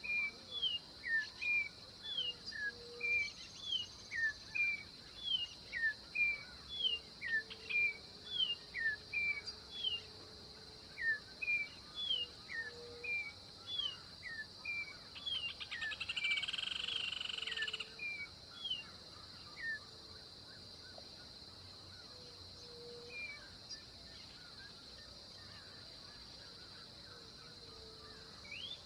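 Orange-backed troupial calling: a long run of short slurred whistled notes, about two a second, that thins out to a few scattered notes after about twenty seconds. A steady high insect drone runs underneath.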